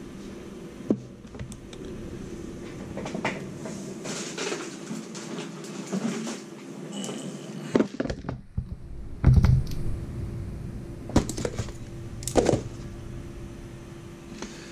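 Plastic and metal parts of an RC rock crawler kit being handled and set down on a desk: scattered knocks and clatters, the heaviest about nine seconds in, over a steady low hum.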